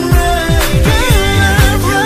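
Music: a song with a steady beat of deep bass drums that drop in pitch on each stroke, and a melody line that bends up and down from about halfway.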